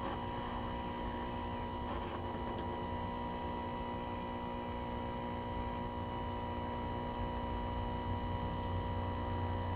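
Running 1966 Sylvania tube color television giving off a steady electrical hum with several steady tones over it, the clearest a mid-pitched tone. A faint brief rustle about two seconds in.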